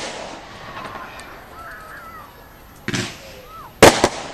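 Category F2 consumer battery fireworks going off. The echo of a bang trails off at the start, another shot comes about three seconds in, and a loud double bang follows near the end. Spectators' voices call out in between.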